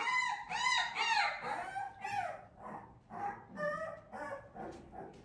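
Newborn puppies whimpering and squealing: a run of short, high cries that rise and fall in pitch, several overlapping. They are loudest in the first two seconds and thin out to fainter, sparser cries after that.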